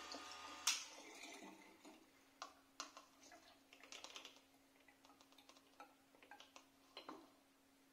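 Small battery-powered electric pump humming as it pumps cider through its tube into a plastic funnel, then stopping with a sharp click under a second in. Afterwards, scattered light clicks and taps of the plastic funnel and tube against the glass bottles.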